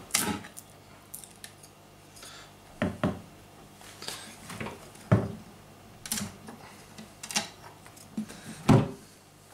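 Wooden blocks stuck to a freshly siliconed glass aquarium being pulled off and put down: a string of sharp knocks and clicks, roughly one a second, the loudest just after the start, about five seconds in and near the end.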